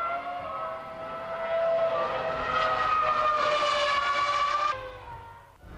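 Racing car engine running at high revs, a high-pitched note that sags, climbs and sags again, then cuts off sharply after nearly five seconds.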